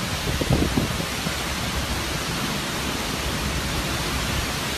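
Heavy hurricane rain pouring down in a dense, steady hiss, with a brief low rumble about half a second in.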